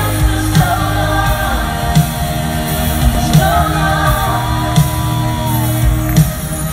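Live pop ballad played loud through an arena sound system: a male lead vocal sings over sustained bass and keys, with a heavy drum hit about every second and a half.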